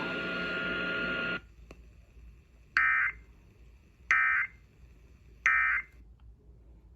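Emergency Alert System data bursts over the radio: three short, identical, warbling digital chirps about a second and a half apart. This is the end-of-message code that closes the severe thunderstorm warning. They are preceded by about a second and a half of a steady buzzing tone that cuts off.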